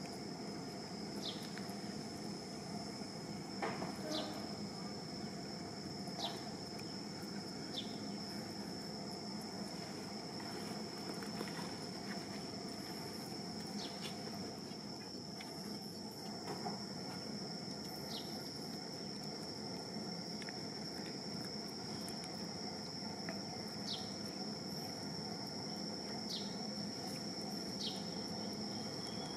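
Insects keep up a steady, high-pitched drone, with brief falling chirps here and there over a low, even background hiss.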